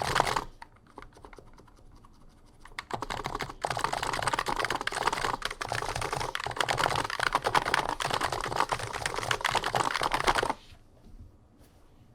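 Typing on an Abko Hacker K965P V2 keyboard with 55 g Niz electrocapacitive switches: deep, thocky keystrokes, a brief flurry at the start and a few single presses, then fast continuous typing from about three seconds in that stops abruptly near the end. Some rattly, springy notes come from stabilizers whose factory lube has worn off.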